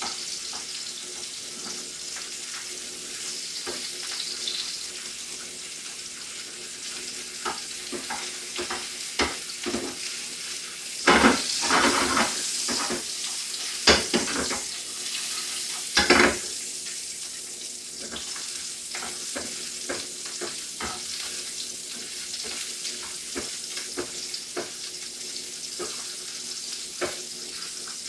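Sausages frying in hot oil in a pan, a steady sizzle broken by sharp pops and clicks, with a cluster of louder ones about halfway through.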